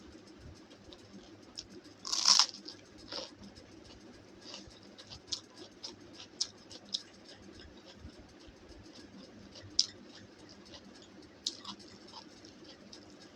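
Close-miked eating sounds: a person chewing, with one louder crunch about two seconds in, followed by scattered small crunches and mouth clicks.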